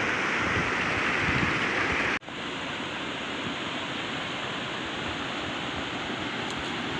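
Steady rush of a fast-flowing mountain creek. About two seconds in it cuts off abruptly and resumes slightly quieter and duller.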